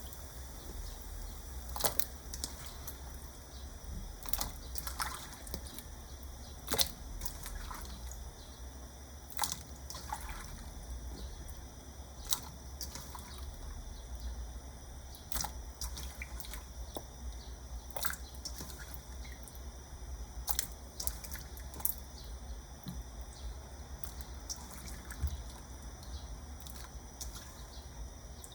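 Pot of hot water on the stove: irregular small drips, splashes and clicks over a low steady hum.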